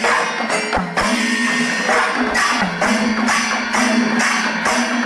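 Music: rhythmic percussion with jingling, cymbal-like strokes about three a second over a sustained melody line.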